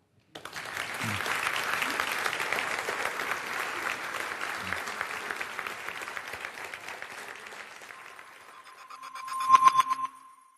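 Audience applauding, dying away after about eight seconds. Near the end comes a short electronic jingle with a ringing tone, the loudest moment.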